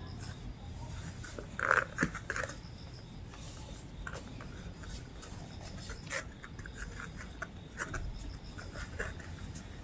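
Shih Tzu puppies at play with a rope toy: a few short puppy vocal sounds about two seconds in, the loudest part, over light rustling of the rope and small ticks and scuffles on the floor mat.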